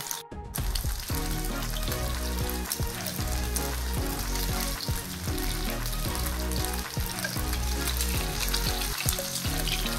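Spice-coated king fish slices shallow-frying in oil in a nonstick pan with curry leaves: a steady sizzle with fine crackling, over background music with a regular beat.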